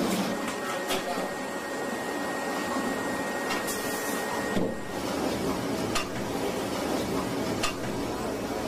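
Banknote production machinery running with a steady mechanical noise and a few sharp clicks. A faint steady whine sounds over the first half.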